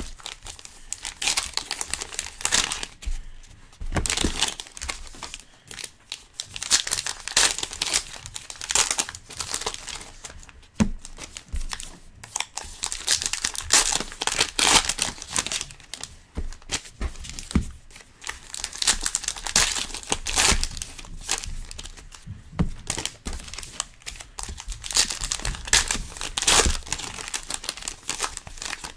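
Baseball card pack wrappers being torn open and crinkled by hand in irregular bursts, with the cards inside pulled out and flipped through.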